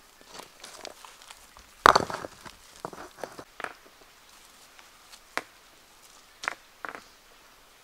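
Scattered knocks and clicks, the loudest about two seconds in, with a few lighter ones spread through the rest.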